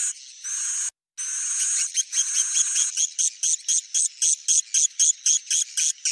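Swiftlet calls: high-pitched twittering chirps, broken by a brief silence about a second in, then from about halfway a fast even run of short chirps, about five a second. This is the call (panggil) sound used to lure swiftlets into nesting houses.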